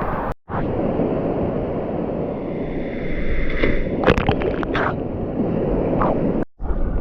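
Rushing water at a waterfall pool, with a few splashes about four seconds in. The sound cuts out briefly twice, about half a second in and near the end.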